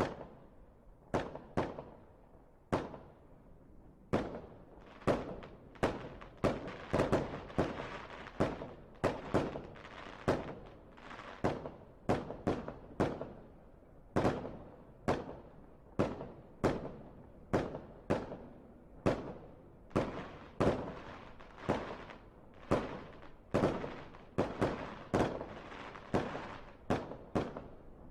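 Fireworks display: aerial shells bursting one after another, about one to two bangs a second, each with a short rumbling tail, thickest and overlapping in a flurry early in the middle.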